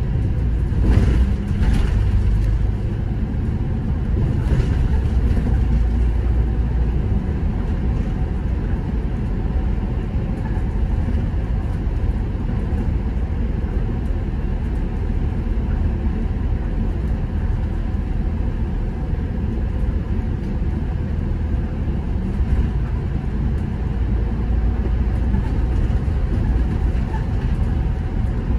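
City bus under way: a steady low rumble of engine and road noise.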